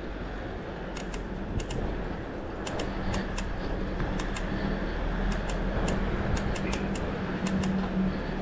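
Bicycle rolling slowly over a cracked, patched street: irregular light clicks and rattles, several a second, over a steady low rumble and hum.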